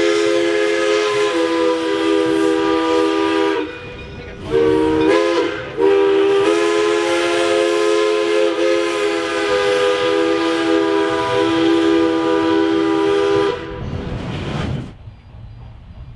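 Steam whistle of the 1920 Baldwin 0-6-0 steam locomotive blowing, several notes sounding together as a chord: the end of a long blast, two short toots about four to five seconds in, then a long blast of about eight seconds that stops near the end.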